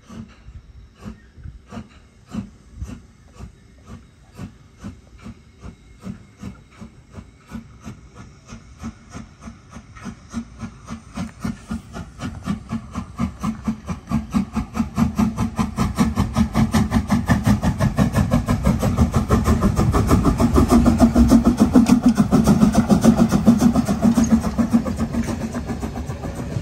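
Metre-gauge 2-10-2T coal-fired steam tank locomotive starting away with a train: exhaust chuffs at first about two a second, quickening and growing steadily louder as it approaches and passes close by, working hard.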